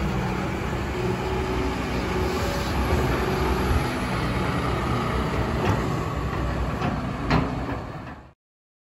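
CAT 320EL tracked excavator running, its diesel engine working steadily as the upper structure swings, with a couple of sharp metallic clanks, the loudest about seven seconds in. The sound fades and stops just after eight seconds.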